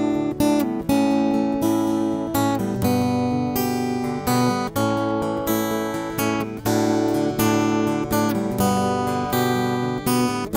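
Opening title music: an acoustic guitar strumming chords in a steady rhythm.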